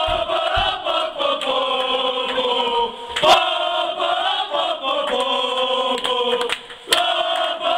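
A group of men chanting a victory song in unison, holding long notes that change about once a second, with scattered hand claps.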